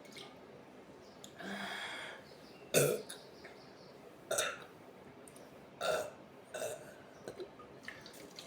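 A woman burping several times after drinking a sparkling drink: short separate burps, the loudest about three seconds in, with smaller ones following.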